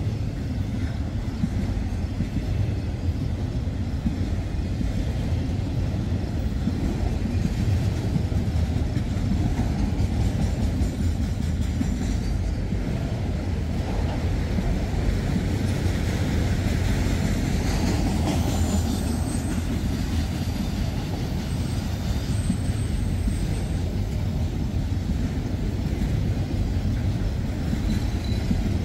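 Freight train of empty autorack cars rolling past, a steady low rumble of wheels on rail.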